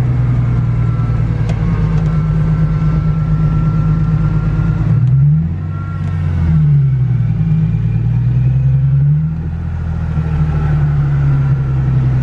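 Fox-body Ford Mustang engine running under way, heard from inside the cabin, after an automatic-to-T5 five-speed manual swap. The engine note drops and comes back twice, about five and a half seconds in and again about nine seconds in, an oddity the occupants notice; the owner traces the car's trouble to the speed sensor tripping the computer's speed governor and cutting fuel.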